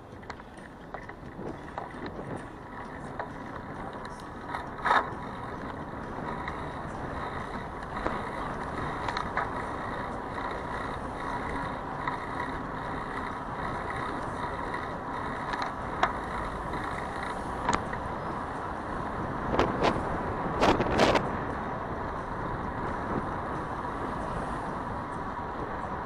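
City street traffic heard from a bicycle riding in the roadway: a steady rush of passing motor vehicles and road noise, with a few sharp clatters, the loudest cluster about twenty seconds in.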